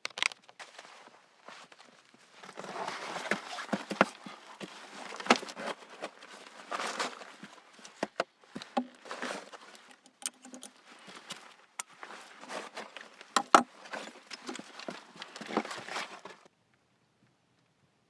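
Irregular scuffing and crunching like footsteps on rough ground, with a few sharp knocks; it stops suddenly near the end.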